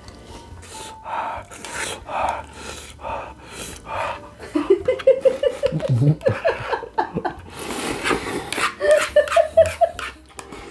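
A man slurping instant ramen noodles off a spoon in a series of short, noisy sucks, mixed with quick, pitched gasping breaths twice.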